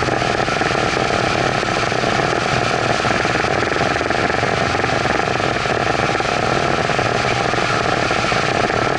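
Evinrude outboard motor running steadily at speed under load, towing a kneeboarder, with water rushing in the churning wake behind it.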